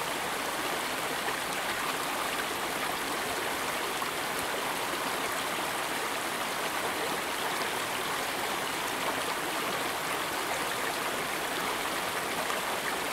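Steady, unbroken rush of a running stream, a water sound effect added in editing rather than recorded on location.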